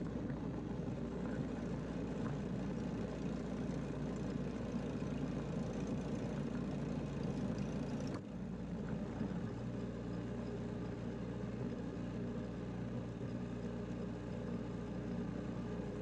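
Snowblower engine running steadily while the machine clears snow, with a brief break a little past halfway.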